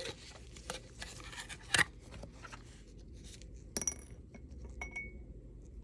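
A few light clicks and taps of a small metal brooch and tools being handled against a dish, with faint rubbing between; the brooch is being lifted out of an acetone soak. The sharpest tap comes just under two seconds in.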